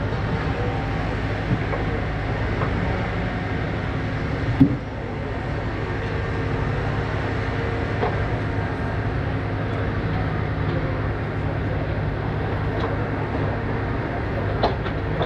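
Engine of heavy logging machinery running steadily, with a sharp click about four and a half seconds in.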